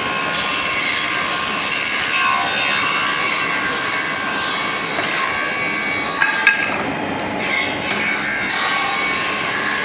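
Double-sided thickness planer with spiral cutter rollers running and planing wooden boards: a steady loud machine whine over the rush of cutting. Two sharp clicks come about six seconds in.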